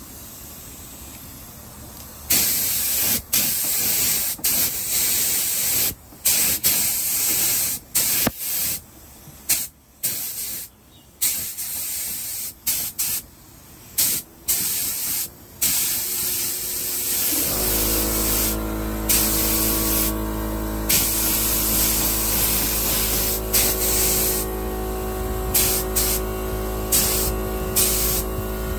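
Paint spray gun shooting clear coat in repeated on-off bursts of hiss, some short, some held for a second or two. Partway through, a steady low machine hum starts and runs on under the spray bursts.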